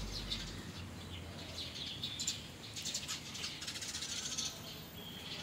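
Small songbirds chirping and twittering: many short, quick high-pitched calls overlapping, busiest in the middle of the stretch.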